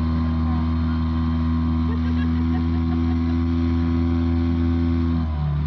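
Small boat's outboard motor running steadily while under way, its hum dropping briefly in pitch near the end and then picking back up.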